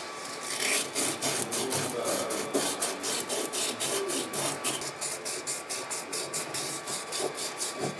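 Rapid back-and-forth hand scrubbing or sanding strokes on a part, about five strokes a second, starting about half a second in.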